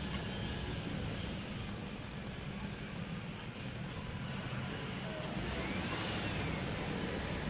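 Low, steady engine rumble, with a faint whistle that rises and falls about six seconds in.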